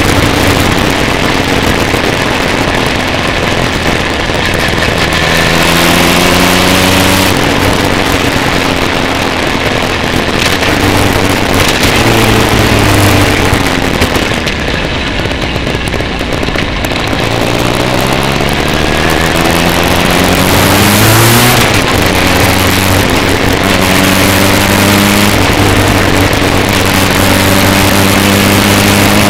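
Motorcycle engine under way, heard from a camera mounted on the bike, its pitch rising several times as it accelerates through the gears and dropping back between. A steady rush of wind and road noise runs underneath.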